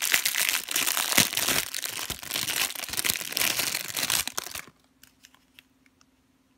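Clear plastic packaging bag crinkling as hands pull it open and work the boxed squishy out. It stops abruptly about four and a half seconds in, leaving a faint steady hum and a few light ticks.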